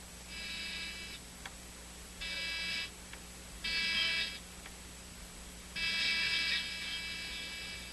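Crosley 11-104U tube AM radio's speaker giving four bursts of a buzzy, steady-pitched sound, the last and longest starting about six seconds in, over a low steady hum, as the oscillator trimmer is turned to bring in the station at 850.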